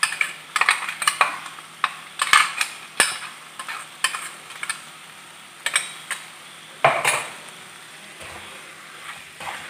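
Wooden spatula stirring chicken and masala paste in a frying pan: irregular knocks and scrapes of wood against the pan over a faint sizzle. The strokes come thick at first and thin out after about five seconds.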